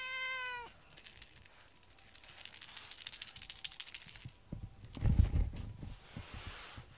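A domestic cat gives one short meow, slightly falling at the end. It is followed by a few seconds of rapid, dry scratchy rattling. A couple of low thumps come near the end, the loudest sounds here.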